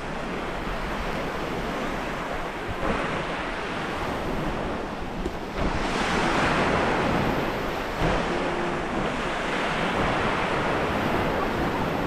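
Sea waves washing over a stony beach, with a louder surge about halfway through.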